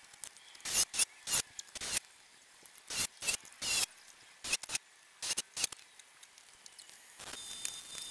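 A string of short, sharp rasping bursts from metalworking tools at the car body, in quick uneven clusters. About seven seconds in, a MIG welder's steady crackling hiss starts as the new rear quarter panel is welded on.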